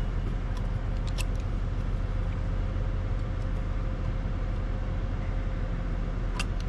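Steady low machine hum with a faint steady tone, and a few light metallic clicks from needle-nose pliers bending a cotter pin on the pump shift cable linkage: a pair about a second in and one more near the end.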